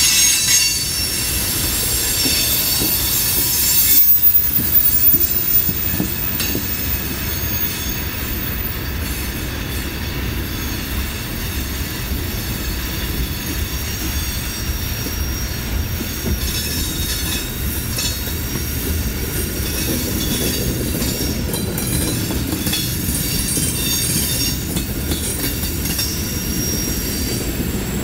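Coal train's hopper cars rolling across a steel trestle: a steady low rumble with high-pitched wheel squeal over it, strongest in the first few seconds and again through the second half.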